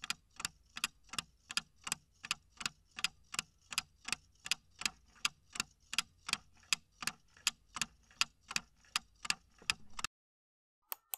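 Clock-ticking sound effect marking a countdown timer, about three sharp ticks a second, stopping suddenly as the count reaches zero. A brief sharp double click sounds just before the end.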